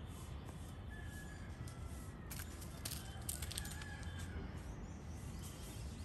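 Outdoor ambience: faint bird whistles over a steady low rumble, with a brief cluster of sharp clicks and chirps between about two and three and a half seconds in.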